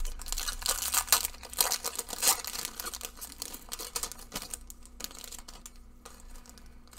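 A Magic: The Gathering draft booster pack's foil wrapper being torn open and crinkled: dense crackling for about three and a half seconds, thinning to sparse rustles near the end.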